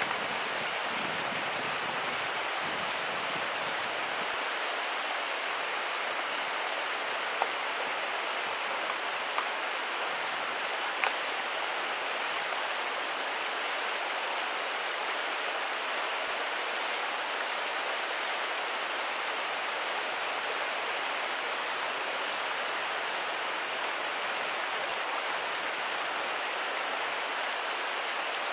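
Stream water pouring steadily over low rock cascades, with a faint high pulsing about once a second above it. A few short, light knocks stand out about a third of the way in.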